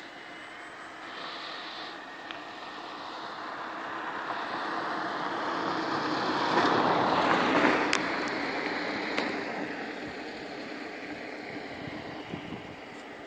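Electric motor and propeller of a small Depron park-flyer model plane, growing louder as it passes close, loudest about two-thirds of the way through, then fading as it flies off. Wind is rushing on the microphone throughout.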